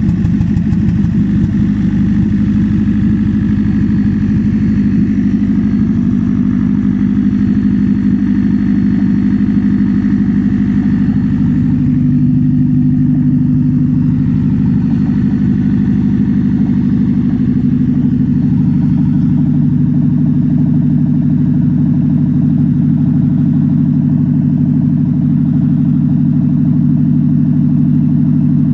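Toyota Prius engine making a loud noise: a steady, continuous drone, its tone shifting slightly about twelve seconds in.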